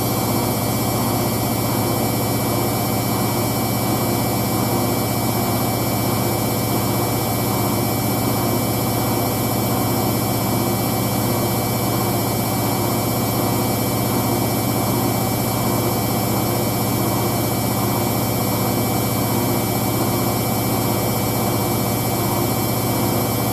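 Hoover DYN9144D3X washing machine spinning a load of towels at high speed, a steady hum and motor whine that holds even throughout.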